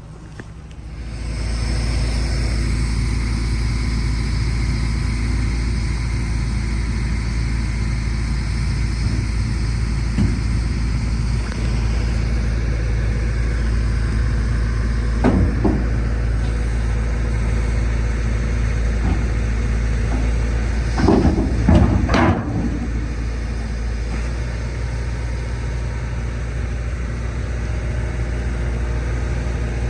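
A heavy machine's engine running steadily, throttled up about a second in, with a few metallic clanks around the middle and a cluster of louder knocks about two-thirds of the way through.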